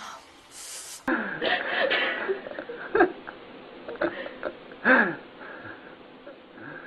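An animal making short, voice-like calls; two louder calls, about three and five seconds in, fall in pitch.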